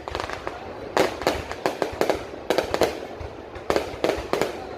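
Fireworks display: a rapid, irregular series of bangs and crackles, the loudest burst about a second in.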